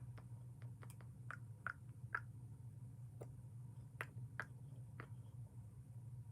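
Bead-filled water slime being squished and pulled as beads are picked out of it by hand: irregular small wet clicks and squelchy pops, about a dozen, over a steady low hum.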